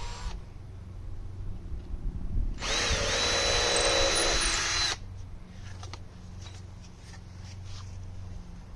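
Power drill running once for about two seconds with a steady whine, boring a small pilot hole through the drilling template into a wooden board.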